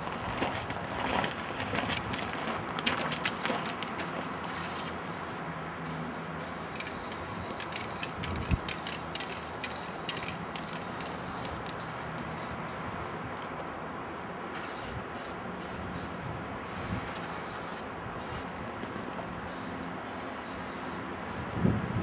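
Aerosol spray-paint can spraying in long hisses that stop and start again and again, with a few sharp clicks in the first seconds.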